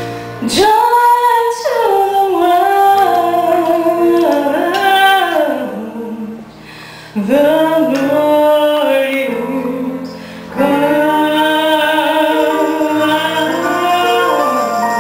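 Live amplified performance: female vocals sung through microphones over an electric keyboard accompaniment, in three long phrases with brief pauses between them.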